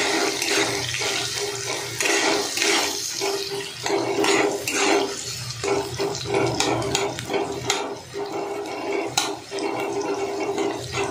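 Chopped onions sizzling in hot oil in a nonstick kadai, with a steel spatula scraping and clicking against the pan as they are stirred. A steady low hum runs underneath.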